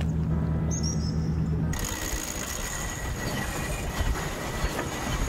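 A steady low engine hum that cuts off abruptly about a second and a half in. It gives way to a steady rush of wind and water noise with a thin high whine running through it.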